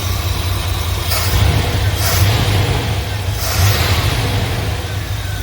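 Carbureted engine of a 1988 Chevy K2500 pickup running steadily, its low rumble swelling a few times in the middle. It keeps running on fuel pulled up from the newly fitted tank rather than dying.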